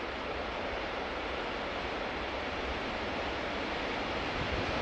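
Freight train of tank wagons hauled by an electric locomotive rolling past, a steady rushing rumble of wheels on rail that slowly grows louder, with a few low thumps near the end.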